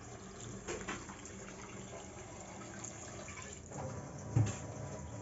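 Cold water poured from a jug onto boiled noodles in a steel bowl, rinsing them so they stop cooking: a steady splashing pour that tails off about four seconds in, then a brief thump.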